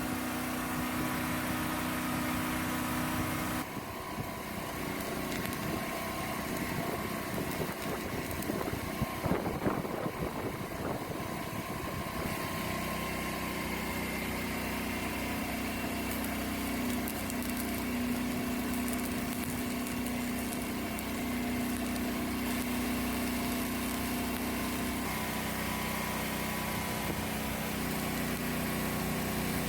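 Engine of a mobile welding rig's engine-driven welder running, its note changing about four seconds in and settling back into a steady hum from about twelve seconds on, with irregular crackling in the stretch between.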